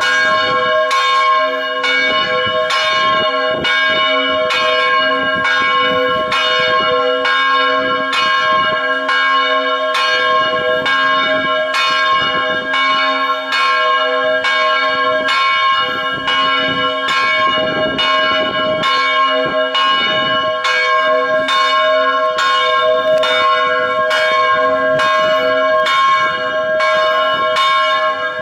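Church bell ringing continuously, struck in an even run of about two strokes a second, its tone ringing on between strokes.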